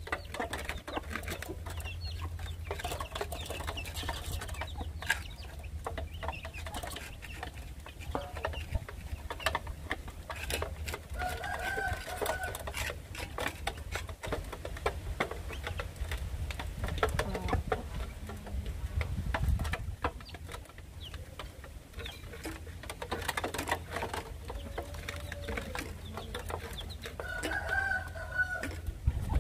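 A hen and her chicks pecking feed from a metal basin: a steady patter of beak taps on the metal, with a few short calls from the hen.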